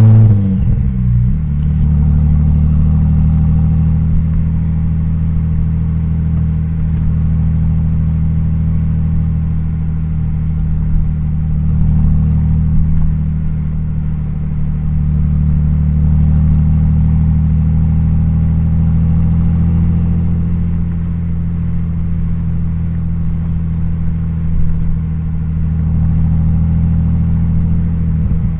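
Twin-turbo 2.7-litre V6 of a tuned Audi S4 B5 cruising at low, steady revs: a deep, even engine drone whose pitch barely changes, swelling and easing slightly with the throttle.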